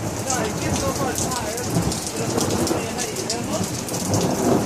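Rain falling steadily on a thunderstorm afternoon, with thunder rumbling low underneath.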